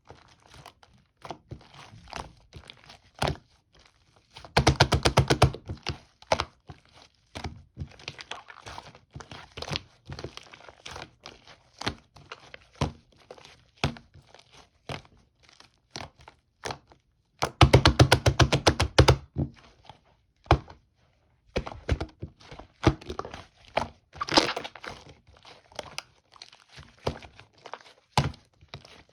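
Slime being squeezed, stretched and folded by hand, giving a steady scatter of sticky clicks and small air-bubble pops. Twice, at about four and a half seconds in and again at about seventeen and a half, a rapid run of loud crackling pops lasts a second or two.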